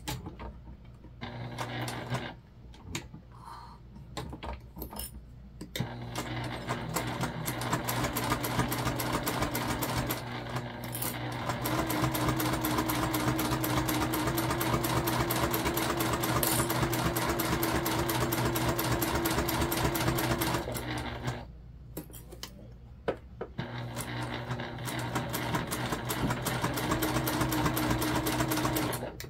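Domestic sewing machine stitching through vinyl: a few short stop-start bursts at first, then a long steady run of rapid needle strokes. It stops briefly about 21 seconds in and starts again for a second run.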